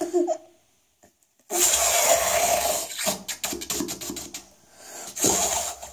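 Air blown through a plastic drinking straw into a puddle of slime, bubbling in separate blows with short pauses between. After the long middle blow comes a quick run of pops as the bubbles burst.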